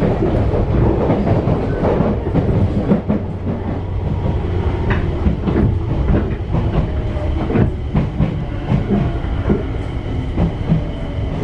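Enshu Railway 1000-series electric train running, heard from inside its cab: a steady rumble with wheels clattering over the rail joints.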